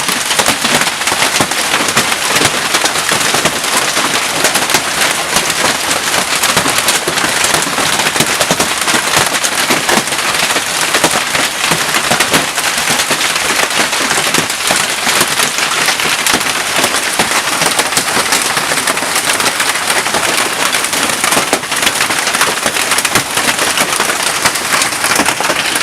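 Hailstorm: a dense, steady clatter of golf-ball-sized hailstones pelting down, many sharp hits a second.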